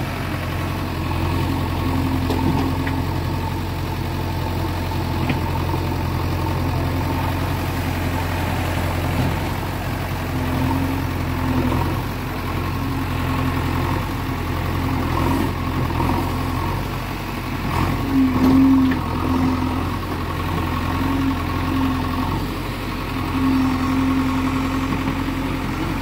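JCB 3DX backhoe loader's diesel engine running steadily, with a higher hum that rises and falls in spells as the machine works. A few brief knocks come about two-thirds of the way through.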